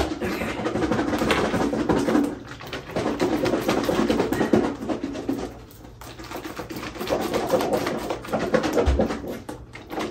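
A lidded container of cut-up pickled sausage and eggs being shaken hard, a dense rattling in two bouts with a lull of about a second and a half around the middle.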